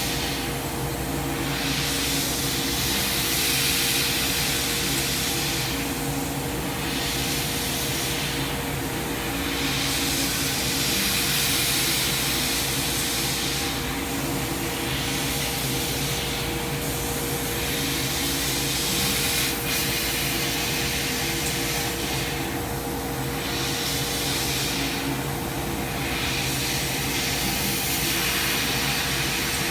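Coherent Meta 1000-watt CNC laser cutter running: a steady machine hiss over a constant hum, the hiss swelling and easing every few seconds.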